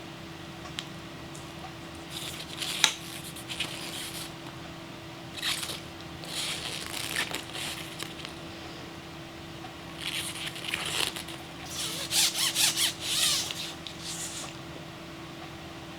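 Packaging being handled and unwrapped in several bursts of crinkling and scraping, with a sharp click about three seconds in. A faint steady hum runs underneath.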